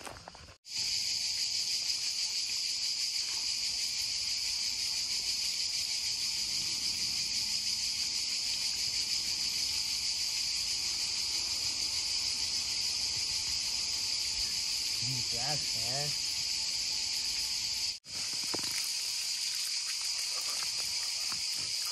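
Cicadas buzzing in a steady, continuous high-pitched chorus.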